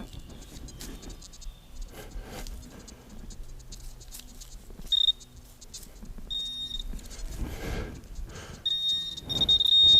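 XP Deus metal detector sounding its high target tone: a short beep about halfway, a second shortly after, then a long loud beep near the end, a strong signal over buried iron. Scuffing and rustling of the detector being swept over the forest floor come between the beeps.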